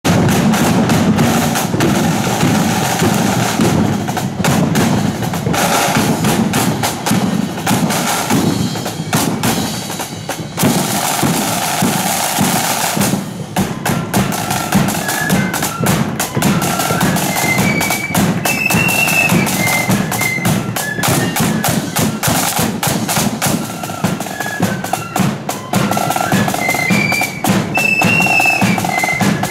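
Marching flute band: a section of snare drums beating a dense rhythm, with flutes taking up a melody about halfway through.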